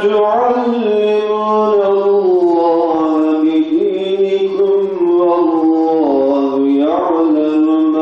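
A man reciting the Qur'an in the melodic tajwid style: one long unbroken phrase of held, ornamented notes with a rising turn near the end.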